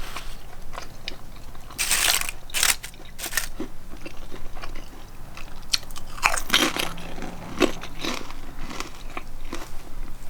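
A person biting and chewing crunchy food close to the microphone, with irregular crisp crunches that come in clusters.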